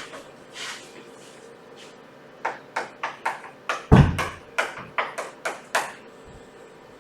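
A quick run of about ten sharp taps, roughly three a second, with one heavier deep thump about four seconds in.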